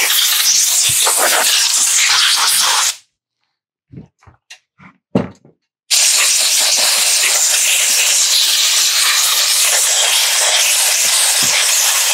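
Compressed air hissing from a blow gun as it blows dust and debris off a chainsaw. The air cuts off abruptly about three seconds in, leaving a few light knocks and clicks, then starts again about six seconds in and keeps blowing.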